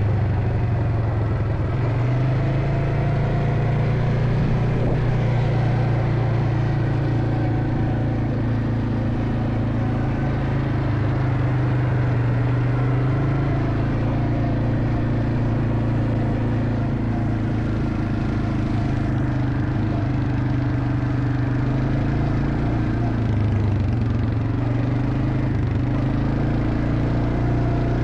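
A vehicle engine running steadily, with a low hum whose pitch shifts slightly now and then as the speed changes.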